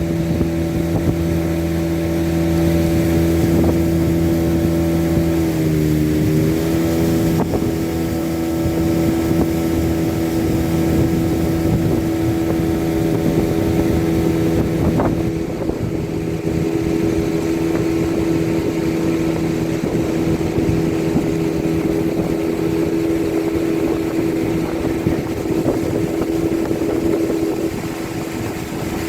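Motorboat engine running steadily at cruising speed, its pitch dipping briefly about six seconds in before settling back, with wind and water noise.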